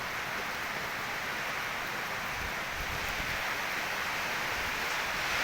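Heavy rain falling steadily in a windy storm, an even hiss.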